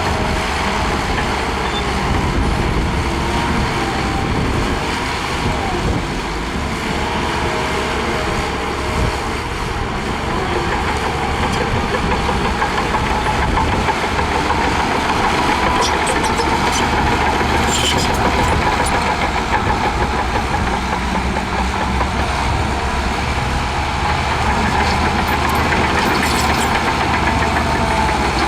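Bulldozer's diesel engine running steadily, with a few brief light clicks and clanks in the second half.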